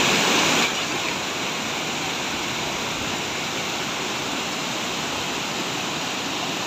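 Mountain waterfall cascading over rock ledges and boulders: a steady rush of falling water, a little louder for the first moment.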